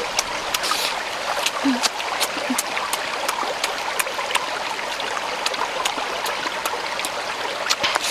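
A shallow rocky stream running steadily, with frequent sharp smacking clicks of chewing and a couple of brief low murmurs.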